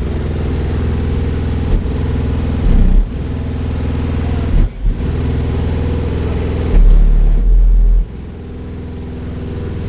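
Bass-heavy music played very loud through a car audio system of six Sundown ZV5 18-inch subwoofers in a fourth-order enclosure; almost only the deep bass comes through. The heaviest bass hits come about seven seconds in, then the level drops back.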